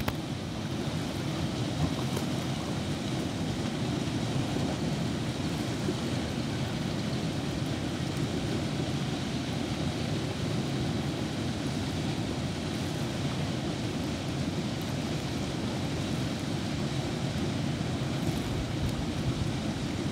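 Water rushing steadily down a concrete spillway channel at a lake-outlet flood-control dyke.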